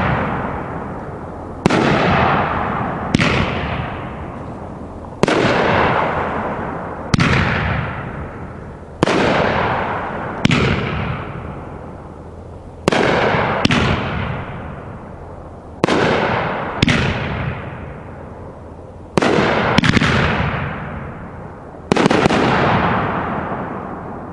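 Dominator Mammoth Brocade 500g firework cake firing its shots: a sharp bang every one to two seconds, some coming in quick pairs, each trailing off in a long fading hiss as the break burns out.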